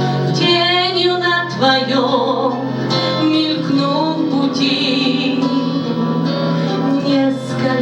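A woman singing a Russian-language song with vibrato over an instrumental accompaniment.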